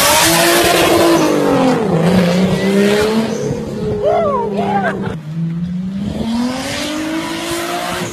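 Toyota Supra's engine revving hard while its tyres squeal as it slides. The engine note drops after a couple of seconds, holds low, then climbs again as the car accelerates down the street.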